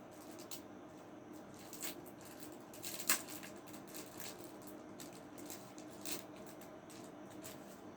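A package being opened by hand: scattered rustles, scrapes and clicks of packaging, the sharpest a snap about three seconds in.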